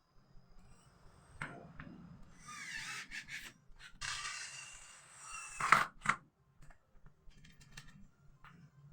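A handheld power tool run in two short bursts, its pitch rising as it spins up, with a few sharp knocks of wood or hardware between them.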